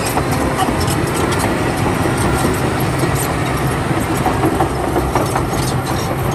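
Caterpillar D9T crawler bulldozer working, its diesel engine running steadily, with frequent short sharp clanks over the top.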